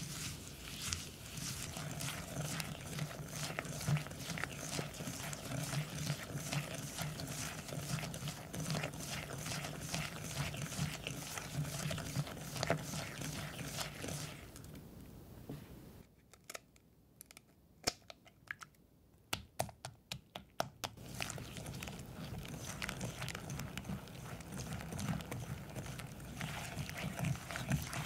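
Silicone-coated whisk beating butter and sugar in a glass bowl: fast, continuous scraping and clicking of the wires against the glass. Past the middle the beating stops for several seconds, leaving only a few scattered clicks, then starts again as egg is whisked into the creamed butter.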